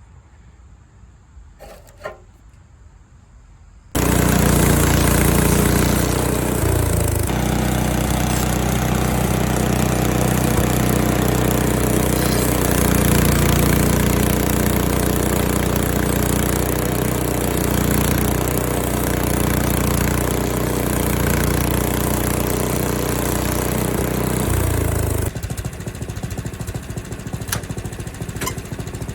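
Quiet for about four seconds, then the small gas engine of a Frontier OS23 bandsaw mill comes in suddenly, running loud and steady at high speed while the band blade saws through an apple log. About 25 seconds in it drops to a lower, rougher running speed.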